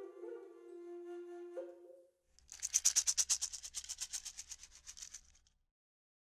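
Intro music: a wind instrument holds a low note, steps up briefly, and ends about two seconds in. Then comes a fast, rattling shaker run lasting about three seconds.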